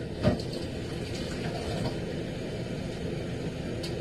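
Kitchen faucet running steadily, with a knock just after the start and a faint click near the end.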